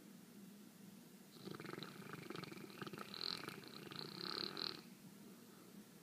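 Sleeping Saint Bernard snoring: one long fluttering snore from about a second and a half in to nearly five seconds in, quieter before and after.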